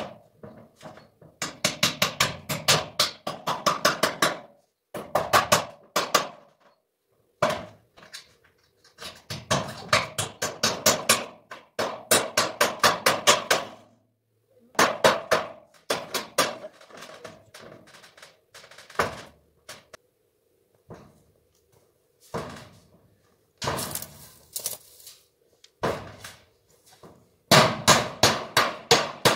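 Hammering on a fence: quick runs of sharp blows, several a second, broken by short pauses.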